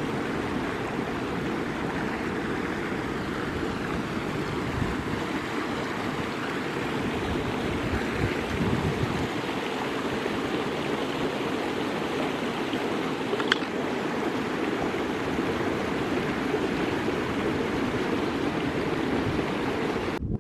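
Creek water flowing steadily, a continuous rushing, with a single brief click a little past the middle.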